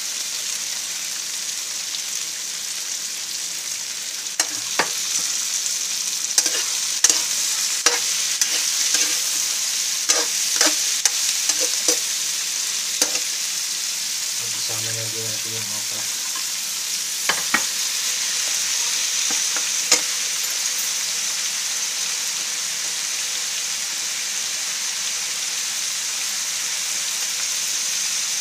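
Squash, bitter melon and okra sizzling steadily in hot oil in a pan while a metal ladle stirs them, with sharp clinks and scrapes of the ladle against the pan scattered through the first twenty seconds or so.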